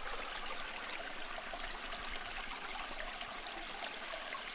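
Small, shallow rocky stream flowing steadily over stones, a continuous wash of running water.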